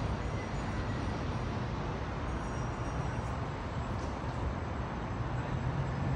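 Steady rumble of distant road traffic, with a few faint high ticks.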